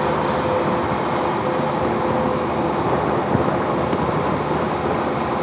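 Ships' steel hulls grinding against each other: a steady, loud rumbling scrape with a faint ongoing hum.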